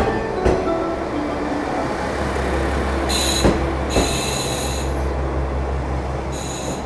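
KiHa 40 diesel railcar pulling into a station platform. The engine rumbles low and steady while the brakes or wheels squeal high three times as it slows.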